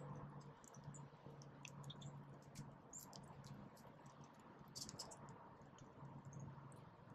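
Faint scattered sharp ticks and chips from small ground-feeding birds pecking at seed, over a low steady hum.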